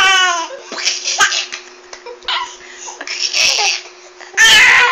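Baby laughing in fits: a high squeal falling in pitch at the start, short breathy giggles in between, and a loud burst of laughter near the end.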